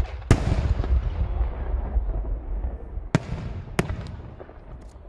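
Aerial firework shells bursting overhead: a sharp bang at the start and a louder one just after, followed by a long low rumble that slowly fades, then two more sharp bangs about three and four seconds in.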